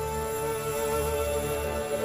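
Soft background music: held synthesizer notes over a gentle low pulse.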